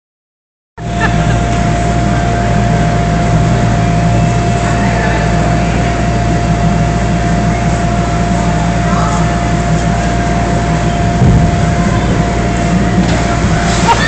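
Electric blower fans running continuously to keep inflatables standing: a loud, steady rumble with a low hum and a thin, steady whine over it.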